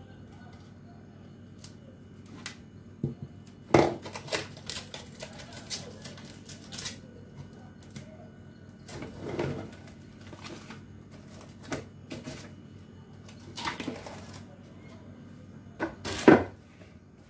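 Plastic cling film being handled and wrapped around a ceramic bowl: crinkling and crackling with scattered sharp clicks. There are two louder knocks, the loudest near the end as the bowl is set down on the stone counter.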